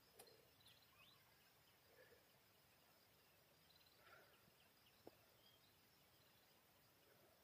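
Near silence: faint quiet ambience with a few soft, isolated ticks and rustles, the sharpest a single click about five seconds in.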